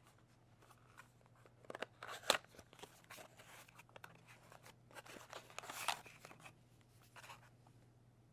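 Packaging being handled and opened: scattered clicks and rustling crinkles. The loudest sharp snap comes a little over two seconds in, and a longer crinkling stretch comes near six seconds.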